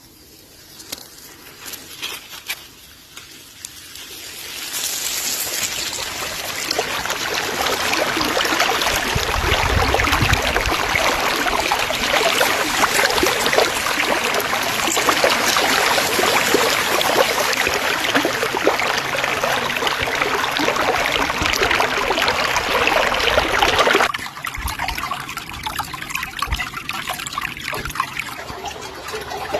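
Running water, like a stream or trickle, swelling up over the first few seconds, then dropping suddenly to a quieter flow about three-quarters of the way through.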